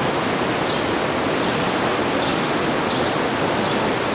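Steady rush of a fast-flowing river torrent, an even loud hiss of water with no let-up, with faint short high chirps recurring about once a second.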